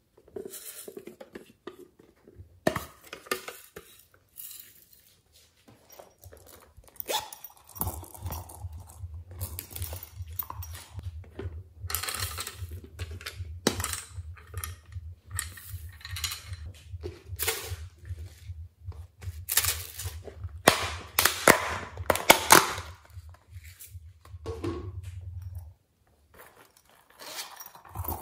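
Hard plastic containers being handled and clicked open, with small beads and sprinkles rattling and spilling in sharp, clattery clicks.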